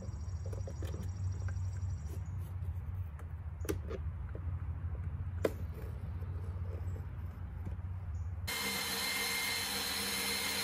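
Quiet handling of a plastic C5 Corvette dashboard, with a low rumble and a few sharp clicks. Near the end a cordless power tool runs steadily with a whine, cutting into the plastic dash for the heads-up display opening.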